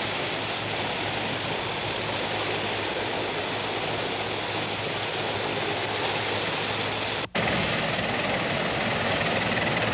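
Large Marine Corps transport helicopter running on the ground: a steady engine and rotor din with a low hum underneath. The sound drops out for an instant about seven seconds in, then the same noise carries on.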